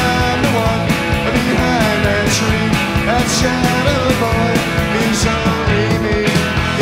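Live rock band recording played from a vinyl record: electric guitars, bass and drums, with a cymbal hit every second or so.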